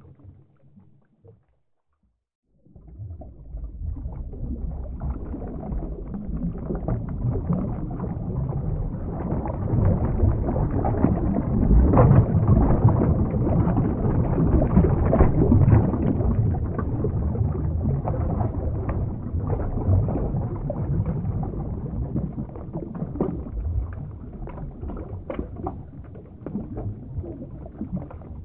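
Underwater ambience sound effect: a low, rushing water noise flecked with small crackles, with no music or tune. It cuts out briefly near the start, then swells to its loudest around the middle and eases off toward the end.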